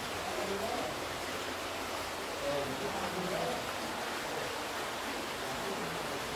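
Steady rushing of a natural stream's flowing water.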